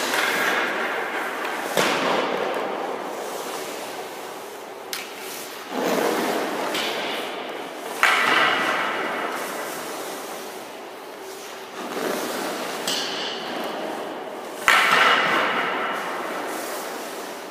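Ice hockey goaltender's skate blades and leg pads hitting and scraping across the ice as the goalie drops into and pushes out of the reverse-VH post position. There are about five strokes, each starting with a sudden hit and trailing off in a hiss over a second or two. The sharpest hits come about 8 and 15 seconds in.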